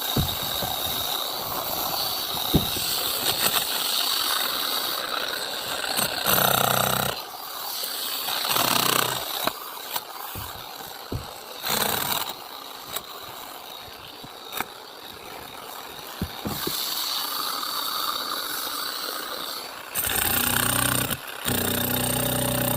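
Concrete-cutting saw running, a steady high whine over a grinding hiss, with scattered knocks and rattles; the sound breaks off and changes abruptly several times.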